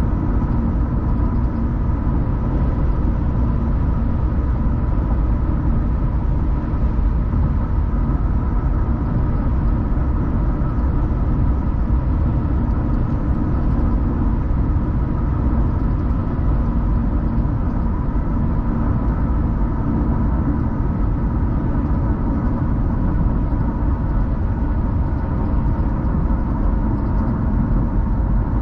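Car driving steadily at road speed: a constant low rumble of engine and road noise, with a faint steady hum on top.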